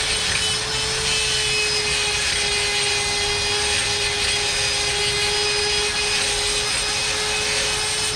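A machine running steadily: an even hiss with a constant whine held at one pitch.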